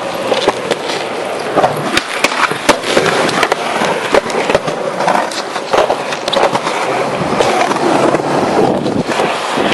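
Skateboard rolling, the wheels making a steady rumble broken by frequent sharp clacks and knocks of the board.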